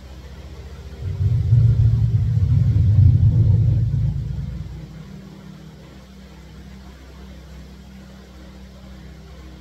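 A loud low rumble that comes in suddenly about a second in and dies away over a few seconds, leaving a steady low hum.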